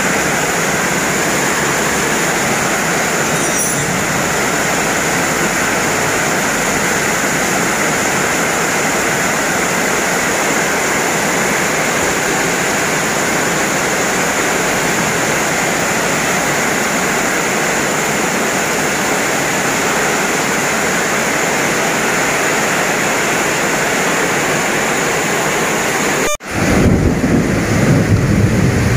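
Heavy rain pouring down, a steady loud hiss. Near the end it cuts out for an instant and comes back with a deeper rumble.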